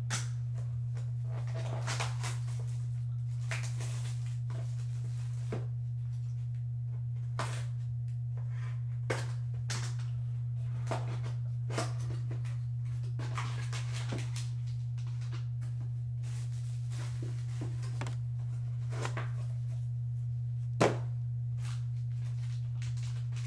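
Small cardboard trading-card box being handled and opened: scattered rustles, light taps and scrapes as the lid is worked off and the contents lifted out, with one sharper tap about 21 seconds in. A steady low hum runs underneath.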